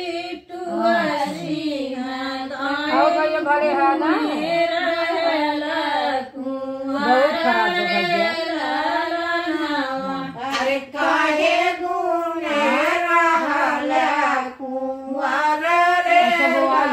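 Women's voices singing a North Indian folk wedding song (shaadi ka geet): a slow melody of long, wavering held notes, with short breaths between the lines.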